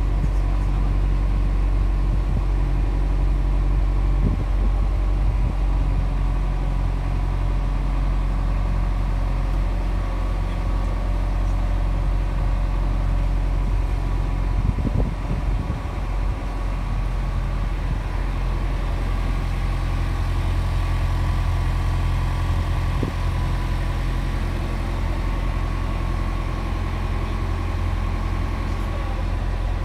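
Boat engine running steadily: a low, even drone, with a short rougher patch about halfway through.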